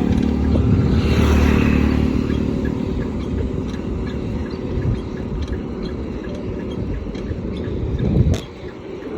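Road traffic: a motor vehicle's engine running close by at first, then a steady low road rumble. A loud knock comes near the end, after which it is quieter.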